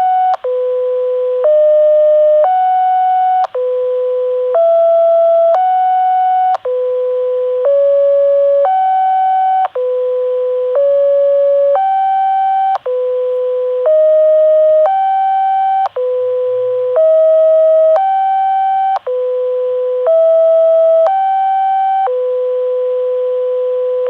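Control signal of a Japanese municipal disaster-prevention radio (bōsai musen) heard through a scanner receiver's speaker: a long run of electronic tones, about one a second, alternating between a low tone near 500 Hz and higher ones. It stops abruptly near the end, leaving radio hiss.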